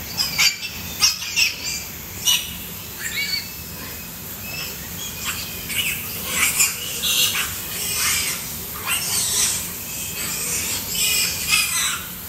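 Piglets squealing in short, high-pitched cries, many of them at irregular intervals, as they jostle for the teats of a nursing sow.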